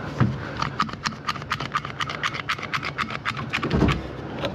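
A bar clamp being ratcheted tight onto a wooden bed frame: a quick, even run of clicks, about six or seven a second, then a low thud near the end.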